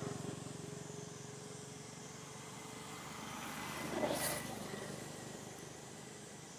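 A motor vehicle passing at a distance: a low engine hum that swells to a peak about four seconds in and fades away.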